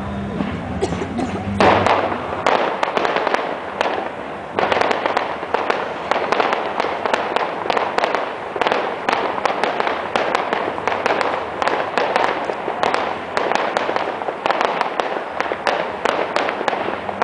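Fireworks display: a rapid, continuous string of bangs and crackles from bursting shells, with a loud burst about two seconds in and another surge about four and a half seconds in.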